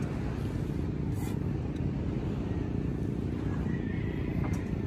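Small motorboat's engine running steadily under way, a continuous low rumble.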